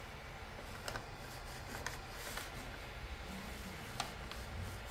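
Faint handling noises: a sheet of paper sliding under a 3D printer's nozzle, with a few light clicks and taps from hands on the printer, the sharpest near the end.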